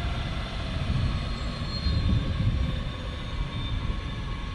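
Parked AH-64E Apache helicopter with its rotors stopped, turbine running: a steady whine of several high tones over a low rumble.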